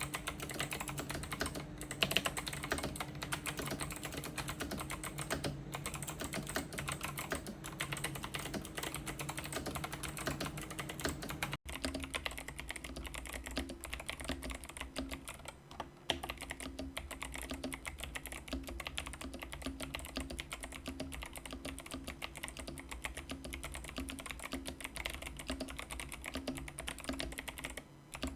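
Typing on a mechanical keyboard with Kailh Box White V2 clicky switches and SA-profile keycaps: rapid, continuous key clicks, with a sudden cut a little before halfway.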